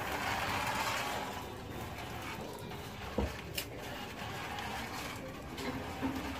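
Toy RC Batman car's small electric motor and gears whirring as it drives over a concrete floor, louder at first and fading as it moves away. A single thump and a click come a little past three seconds.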